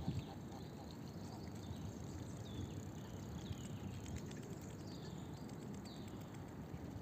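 Small birds calling in short, high chirps that fall in pitch, a few times over several seconds, over a faint steady low rumble.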